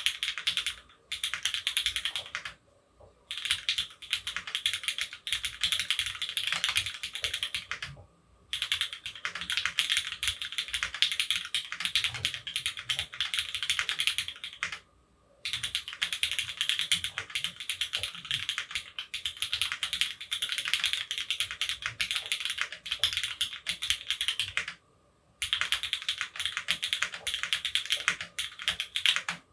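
Continuous typing on an F1-8X gasket-mounted mechanical keyboard with an aluminium leaf-spring plate and retooled Cherry MX Black linear switches lubed with Krytox 205g0. Steady runs of keystrokes are broken by a few short pauses, and the typing stops right at the end.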